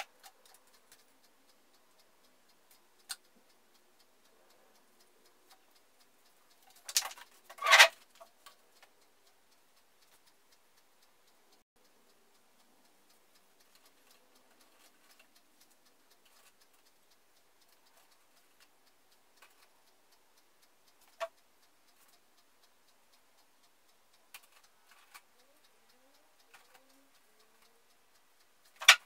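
Ornaments being hung on an artificial Christmas tree: a brief loud rustle about seven seconds in and a few sharp clicks of baubles and branches, over faint steady ticking in a quiet room.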